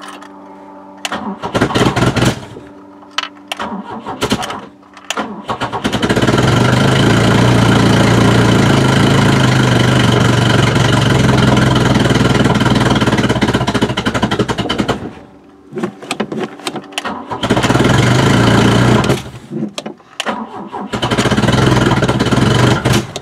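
Ford Cortina Mk3's carburetted engine being cranked and catching after a few seconds of stuttering. It then runs steadily for about nine seconds before dying, and fires up twice more near the end, each time running only briefly: a hard-starting engine that will not keep running.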